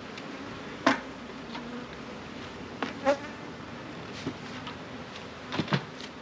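Honey bees buzzing steadily around an opened hive, broken by a few sharp knocks from the hive equipment being handled, the loudest about a second in, as a queen excluder is laid on the box and a bellows smoker is puffed over it.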